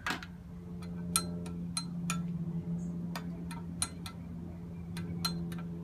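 Irregular light clinks of a utensil striking the inside of a glass measuring cup, a dozen or so with a short glassy ring, as yeast is stirred into warm water. A steady low hum runs underneath.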